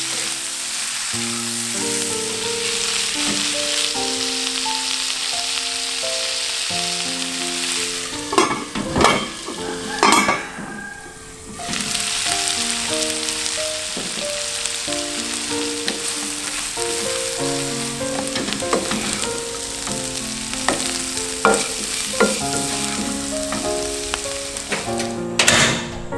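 Sliced bitter gourd and dried anchovies sizzling as they are stir-fried in a wok, with a wooden spatula scraping and knocking against the pan. The sizzle dips briefly about halfway through.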